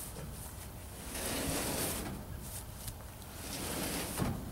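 A loose steel pickup truck bed being shoved by hand across grass: a scraping rustle that swells with each push, and a single dull knock about four seconds in.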